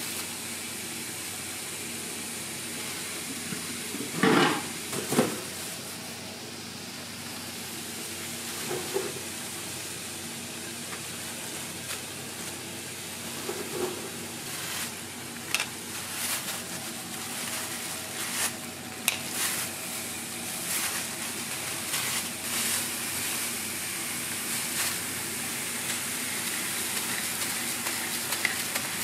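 Food sizzling on a hot flat-top steel griddle: ham slices, sliced onion and pineapple frying, with a steady hiss. There are two loud knocks about four and five seconds in, and scattered clicks and taps of handling on the griddle through the second half.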